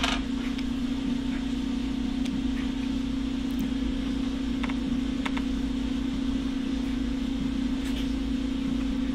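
A steady low hum with a faint rumble beneath it, and a few faint, sharp clicks scattered through it as a small tool picks at the CPU fan connector on a mini PC's motherboard.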